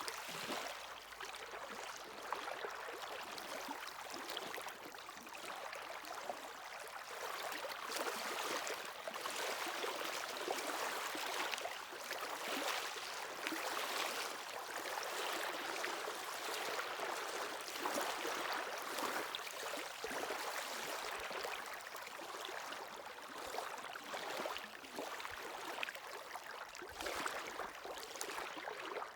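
Sea waves washing onto the shore, a continuous hiss of surf that swells and eases every few seconds.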